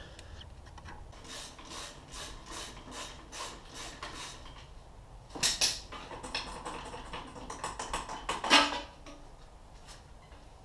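Hand ratchet wrench clicking in an even rhythm on the bolts of a Honda CRF250R engine, followed by two louder metal knocks from parts or tools being handled.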